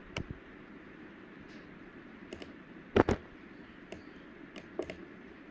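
A few sharp, scattered clicks of a computer mouse and keyboard, with one louder tap about three seconds in, over a faint steady hiss.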